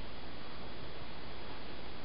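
Steady hiss with a faint low hum and no distinct sounds: room tone.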